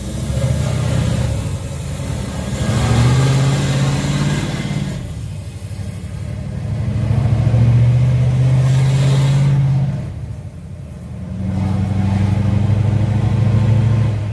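Scania R730's 16-litre V8 diesel engine running loudly under throttle, swelling three times with short lulls between.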